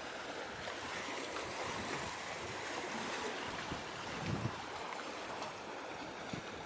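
Steady hiss of wind and sea, with wind buffeting the microphone in irregular low gusts, the strongest about four seconds in.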